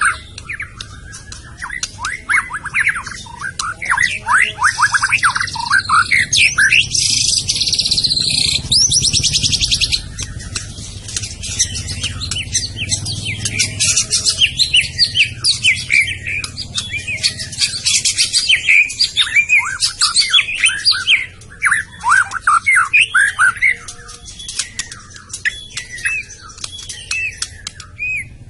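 White-rumped shama (murai batu, Medan strain) singing a fast, varied song of rapid whistled notes and sweeping chips. About seven to ten seconds in there is a dense, high buzzing trill.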